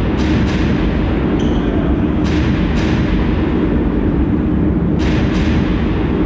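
Steady, loud din of a volleyball arena hall with a handful of sharp knocks: three quick ones at the start, then pairs about two and five seconds in.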